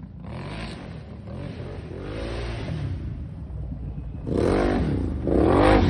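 2018 Can-Am Outlander XMR ATV's V-twin engine revving through a loud exhaust, its pitch rising and falling three times and getting louder toward the end.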